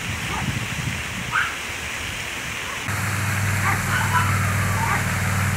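Steady outdoor hiss with faint distant voices; about three seconds in it gives way to a steady low engine hum, like an engine idling.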